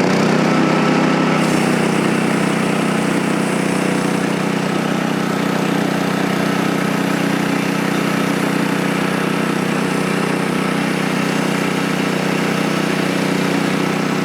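Small gasoline engine of a Frontier OS23 portable band sawmill running steadily at high speed.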